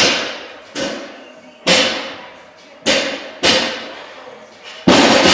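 Loaded barbells, 275 lb, set down on a concrete floor between deadlift reps: six heavy thuds about a second apart, each with a brief metallic ring. The last, near the end, is the loudest and longest.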